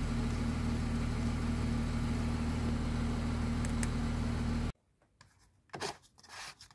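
Audi 3.0 TDI EA897 V6 diesel idling, heard from inside the cabin as a steady low hum with a held tone, the engine warming up to working temperature. It cuts off abruptly near the end, followed by a few faint touches of a hand on the coolant expansion tank cap.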